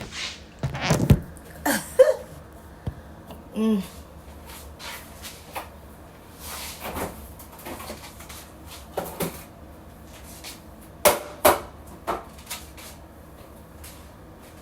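Scattered knocks, thuds and clatter of household items being handled and put away, the loudest pair about eleven seconds in.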